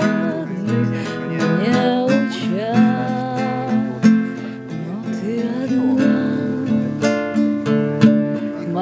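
Music: acoustic guitar strumming under a melody that slides up into long held notes.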